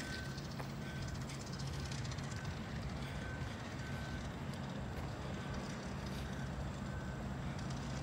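Steady low hum of distant vehicles, with short high single-pitch beeps repeating at uneven intervals.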